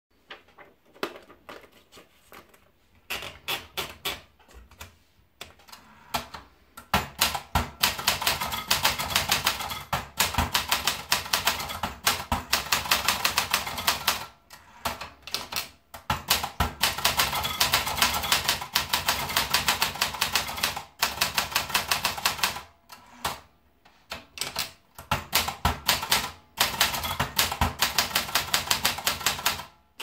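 Olympia Splendid 33 manual portable typewriter being typed on: rapid, sharp key and typebar strikes in three long runs with short pauses between them, after scattered clicks in the first few seconds.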